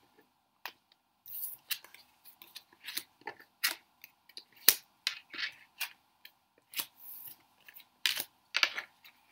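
Tarot de Marseille cards being turned face up one by one and laid on a wooden table: irregular crisp clicks, taps and short papery flicks and slides.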